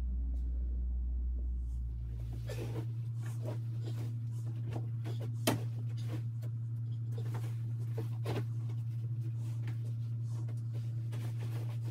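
Clothes being handled and sorted by hand: irregular fabric rustling and light knocks, with one sharp click about five and a half seconds in. Under it runs a steady low hum that shifts higher about three seconds in.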